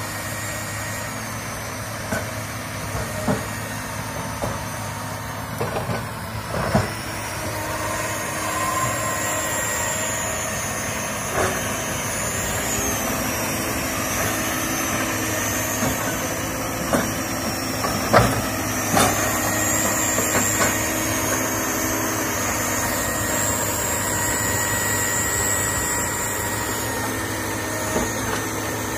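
Komatsu hydraulic excavator's diesel engine running steadily while working through brush, with scattered sharp cracks and knocks now and then and a high, wavering whine above the engine.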